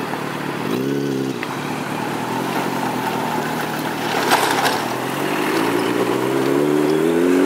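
A road vehicle's engine passing close by about four seconds in, then revving up with a steadily rising pitch as it accelerates away; a shorter rise in engine pitch comes about a second in.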